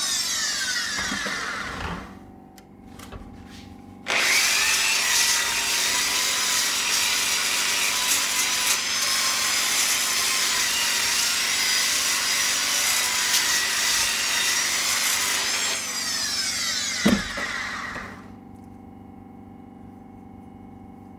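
Drill spinning a flap disc, grinding the plasma-cut marks off the edge of a metal spoke. It winds down with a falling whine about two seconds in, starts again about four seconds in and grinds steadily, then winds down again near the end, with a sharp click as it stops.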